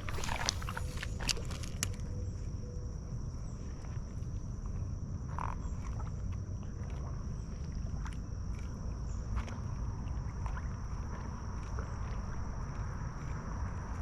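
Creekside ambience: a steady low rumble with a steady high-pitched insect drone over it. A few sharp clicks come in the first two seconds.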